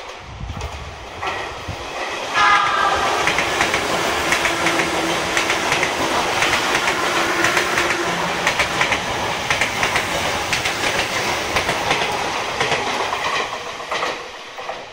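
Sotetsu electric commuter train sounding a short horn blast about two seconds in, then running through the station at speed: a loud, steady rush of wheels on rail with quick clicking over the rail joints, which dies away near the end.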